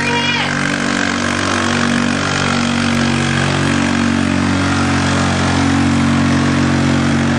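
ATV engine running at steady high revs under load, dragging a weight sled in a pull.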